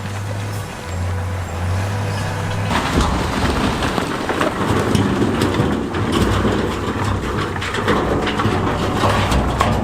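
A heavy diesel machine engine runs with a low steady hum. About three seconds in, a loud rumbling clatter of big stones sliding and tumbling starts and carries on over the engine.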